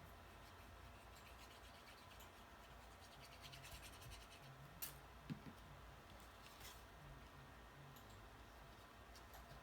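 Near silence with the faint scratching and rubbing of cardstock paper pieces being handled and pressed together, and a couple of light ticks about five and seven seconds in.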